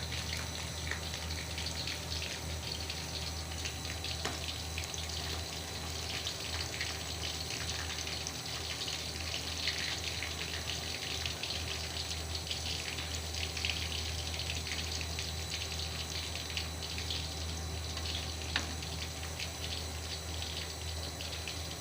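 Oil sizzling steadily in a pan, a dense crackle with fine spits throughout and a few louder pops.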